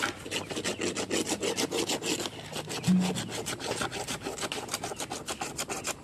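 Rapid crackling and rasping of a Calathea lutea clump's fibrous roots and stalks being pried and torn apart by hand at the root ball, with a brief low hum about three seconds in.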